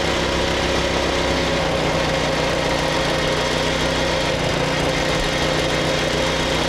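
2017 Rokon Ranger motorcycle's small single-cylinder engine running at a steady speed while riding on the road, at an even pitch and level throughout.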